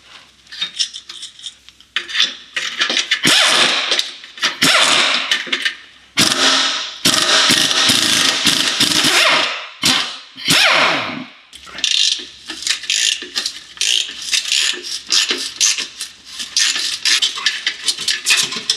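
Cordless power wrench running in bursts of a few seconds as it undoes the bolts of a car's gear-shift linkage, its pitch sliding as each run ends. Then a hand ratchet clicking in quick strokes.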